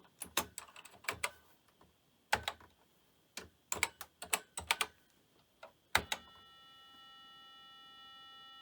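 BBC Model B keyboard being typed on, with irregular key clicks for about six seconds. Then a steady buzzy tone with several overtones starts from the computer's internal speaker and holds, growing slightly louder: the speaker is working.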